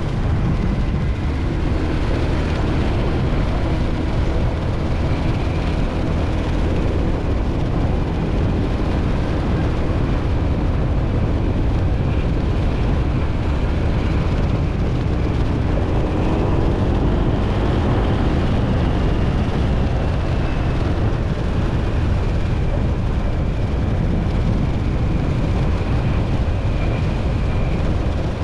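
Motor scooter on the move: a steady, loud rumble of engine and road noise, with a faint wavering whine above it.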